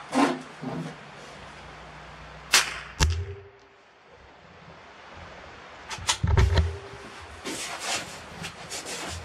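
A precision rifle fires a single shot about two and a half seconds in: one sharp crack, after which the recording's level briefly drops away. A few sharp clicks and knocks follow around six seconds in as the rifle is handled on the ladder.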